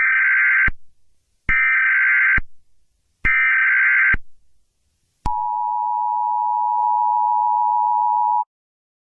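Emergency Alert System header: three short screeching SAME data bursts a little under a second each, then the EAS two-tone attention signal held steady for about three seconds before cutting off suddenly.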